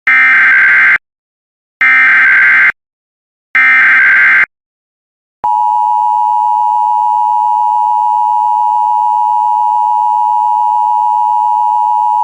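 Emergency Alert System SAME header: three bursts of warbling digital data tones, each about a second long. About five and a half seconds in, the EAS attention signal starts, a steady two-tone alarm (853 and 960 Hz) held without a break.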